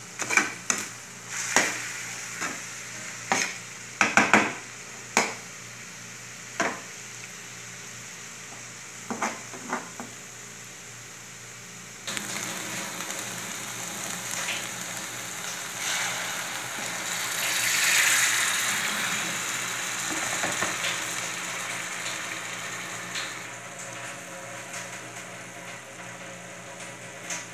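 A metal slotted spoon knocks sharply against a frying pan a dozen or so times as diced potatoes are tipped into ground meat and carrots. About twelve seconds in, a steady sizzle of the mixture frying starts abruptly, with light scrapes and taps of stirring. The sizzle swells for a few seconds and then eases off.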